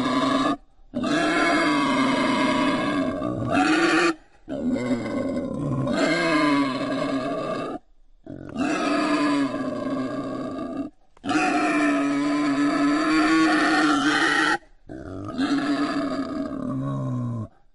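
Wild boar calling: a run of about six long, drawn-out grunting calls, each about three seconds, broken by short, sudden gaps.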